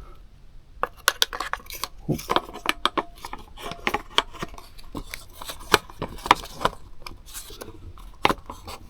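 Small metal tools and hardware clinking and clattering in quick, irregular clicks, starting about a second in, with a few sharper knocks; it stops near the end.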